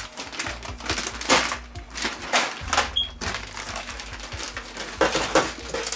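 Irregular rustling and clicking from new LED backlight strips being handled.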